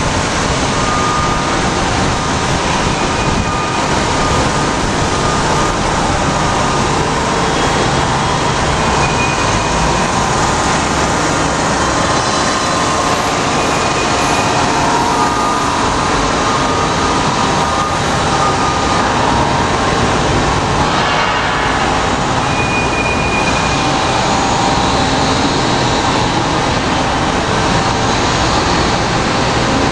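1998 Hyd-Mech S-25P swing-frame horizontal band saw running, its blade cutting steel under flowing coolant: a loud, steady machine noise with faint high whines coming and going.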